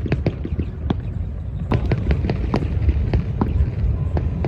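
Fireworks popping and crackling: many sharp, irregular bangs, several a second, over a steady low rumble.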